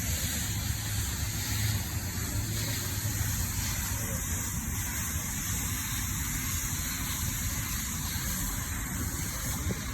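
Water spraying onto an air-conditioner condenser unit during cleaning: a steady hiss over a constant low motor hum.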